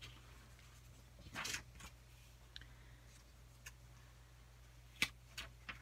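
Paper pages of a handmade journal being handled and turned: a brief soft rustle about a second and a half in, then a few light clicks, the sharpest near the end.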